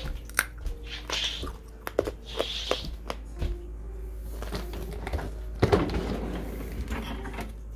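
Handling noise from a phone carried while someone walks across a wooden floor: scattered soft knocks and clicks with a few brief rustles, over a faint steady hum.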